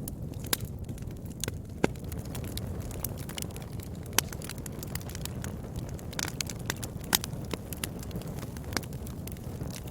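Wood fire burning, with a steady low rumble under irregular crackling and a handful of sharp, loud pops.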